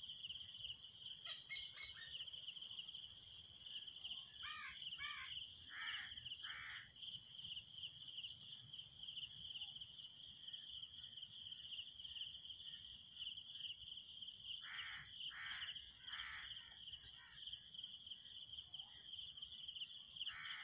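Common quail calling: short, sharp notes in runs of two to four, a few seconds in and again after about fifteen seconds, over a steady high-pitched chorus of crickets.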